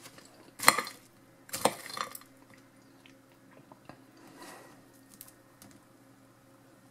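Sounds of eating with a metal fork from a ceramic plate: two sharp clicks about a second apart near the start, then soft chewing and small faint clicks as the fork spears a forkful of soft fries.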